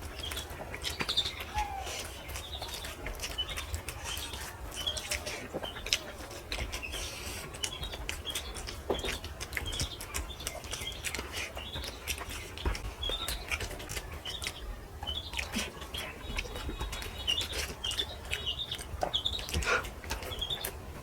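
Close chewing and mouth-smacking of someone eating rice and fried brinjal, a steady run of small wet clicks. Birds chirp repeatedly in the background, short calls about once a second.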